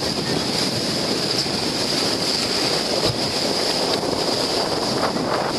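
Steady rush of wind on the microphone mixed with the wash of water and waves around a sailboat under way.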